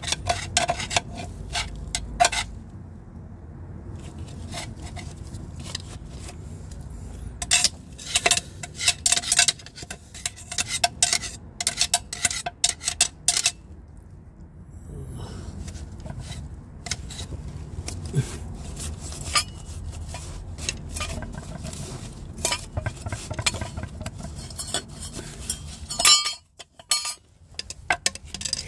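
Light metal clinks and scraping as a manual gearbox's bellhousing and clutch release fork are wiped clean with a rag, coming in clusters of quick clicks.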